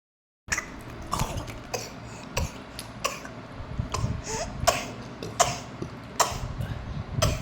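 A baby putting on a fake cough: about ten short coughs in a row, roughly one every two-thirds of a second.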